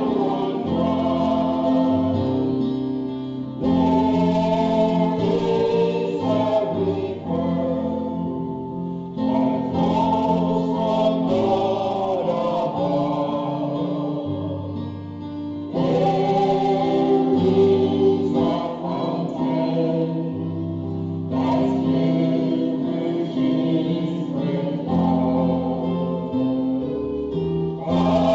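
Church choir singing a gospel song in sustained chords over keyboard accompaniment with a moving bass line. The recording was made on an mp3 player, with a dull top end.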